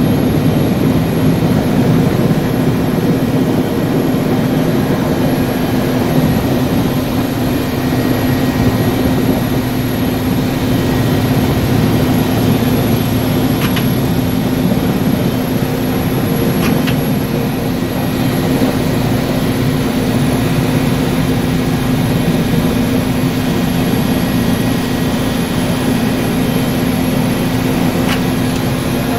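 Mi-17 helicopter's twin turboshaft engines and main rotor running steadily, heard from inside the cockpit: a loud, dense hum with a steady low drone and a thin high whine above it.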